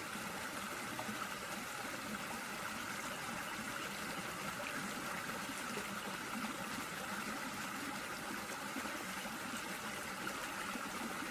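A river in flood after heavy rain, its water rushing in a steady, unbroken roar.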